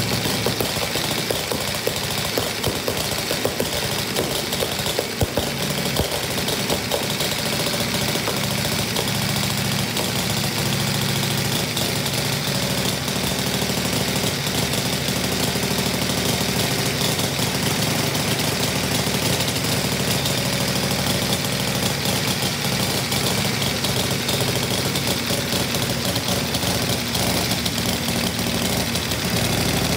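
1903 Clement narrow-angle V-twin engine running on a stand with a rapid, even firing beat, a little uneven in the first few seconds before it settles.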